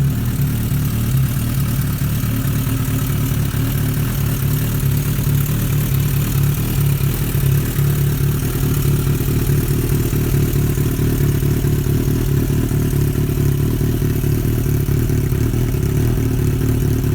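1990 Suzuki GSX-R750L long-stroke inline-four motorcycle engine idling steadily at an even pitch.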